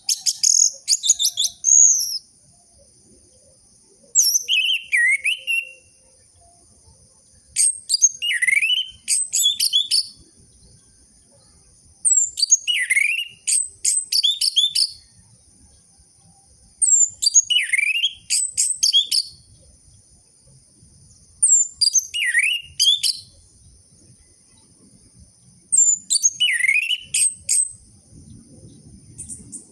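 Orange-headed thrush (anis merah) singing in seven short bursts of rapid, high twittering, one about every four to five seconds. Each burst has a note that swoops down and back up. It is lure song, meant to stir a silent male thrush into answering.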